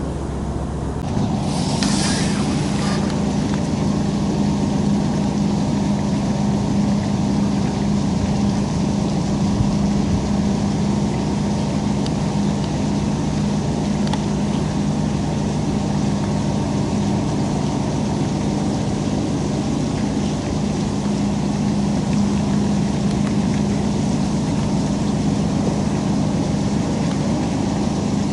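A steady low mechanical hum that starts about a second in and holds evenly, with a brief hiss about two seconds in.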